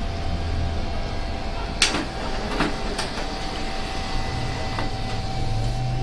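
HP LaserJet Pro M1136 laser multifunction printer running a copy job: a steady motor hum and whine with several sharp mechanical clicks, the loudest about two seconds in.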